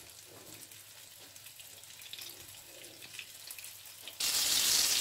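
Flour-coated fish fillets sizzling gently in a little oil in a nonstick frying pan over a low flame, a faint, even crackle that suddenly becomes much louder about four seconds in.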